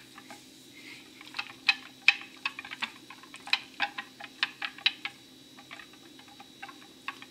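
Silicone whisk beating an egg-and-milk custard mixture in a bowl: a run of light ticks as it knocks the bowl, about four a second, thinning out after about five seconds.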